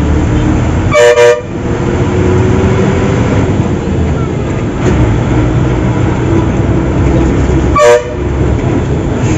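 A vehicle horn honks twice: a quick double blast about a second in and a short one near the end. Under it runs the steady drone of a bus engine under way.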